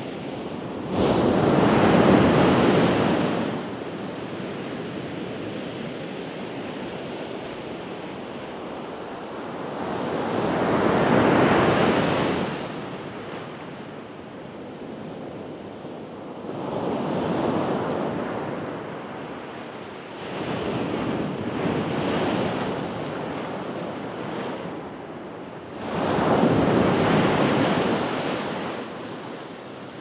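Pacific Ocean surf breaking on a beach: about five waves swell and crash, each lasting a few seconds, over a steady wash of the sea. The loudest wave comes in sharply about a second in.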